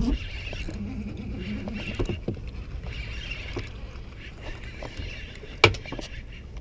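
Penn Slammer spinning reel being cranked against a hooked striped bass that is pulling drag, over a steady low rumble, with a sharp knock at the start and a louder one a little over five seconds in.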